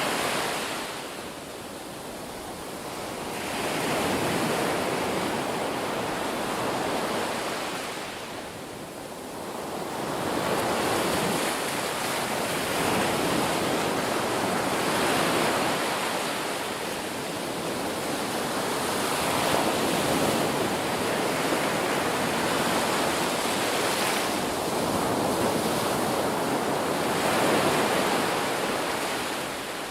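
Ocean waves breaking and washing on the shore, the surf swelling and ebbing every few seconds, with dips in the roar at about 2 s and 9 s.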